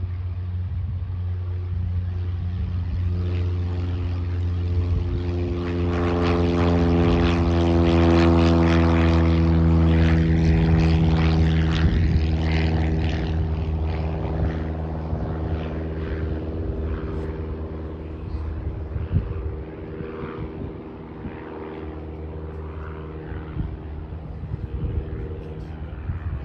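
Single-engine propeller plane climbing out after take-off. The steady drone of its piston engine and propeller swells to a peak a third of the way in, then slowly fades as the plane climbs away.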